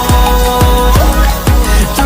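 Background electronic music with a steady beat and deep bass hits.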